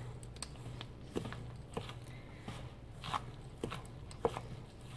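Hands squishing and mixing wet seitan dough of vital wheat gluten in a stainless steel bowl: soft, irregular squelches and light taps against the bowl, over a faint low hum.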